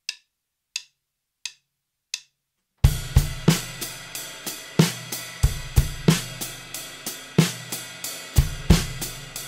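Four light, evenly spaced clicks count in. About three seconds in, a Gretsch drum kit comes in, playing a steady practice pattern of bass drum and snare strokes over hi-hat.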